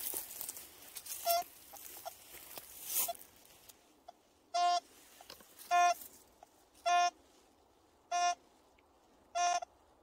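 Rustling through dry leaf litter and brush with one short beep, then, from about four and a half seconds in, a Quest Q30 metal detector giving the same short beep about once every 1.2 seconds, five times, as the coil passes back and forth over a buried metal target reading 52 to 55 on its display.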